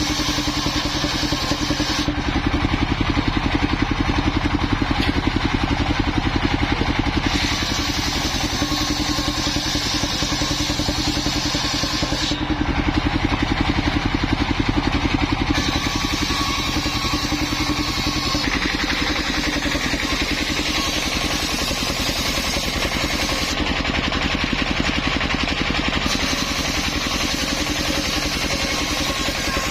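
Engine-driven circular saw rig running steadily, its engine putting along with fast even pulses. A higher hiss comes and goes every few seconds as the blade rips waru wood into roof battens.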